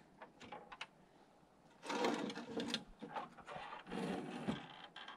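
Miter saw being adjusted to its 31.6-degree mark: a few light clicks, then two short bursts of metallic rattling and scraping as the saw is swung and set, and a fainter rattle near the end.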